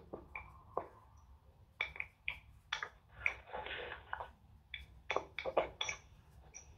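A voice over an online call breaking up into short, choppy fragments, with a steady low hum underneath: the call's audio is cutting out.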